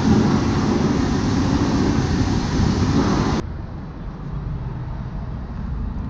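Steady vehicle running noise, a low rumble with a rushing hiss over it; about three and a half seconds in it cuts abruptly to a quieter, duller rumble.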